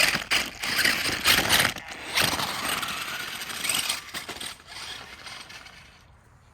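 Radio-controlled monster truck running hard, its drivetrain whirring and clattering. It starts suddenly and loud, then fades out over the last couple of seconds.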